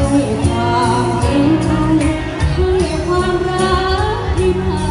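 A Thai song sung into a microphone over band accompaniment, the voice carrying a bending, held melody above a steady beat and bass.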